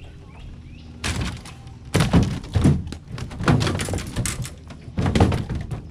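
A bowfin flopping and thrashing on the floor of a small fishing boat: a run of heavy, irregular thumps and rattles starting about a second in and going on throughout.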